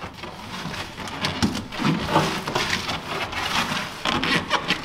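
Hands pressing and rubbing seam tape down onto foil-faced foam sound-deadening mat on a truck's cab floor: an irregular scratchy rubbing and rustling with small crackles.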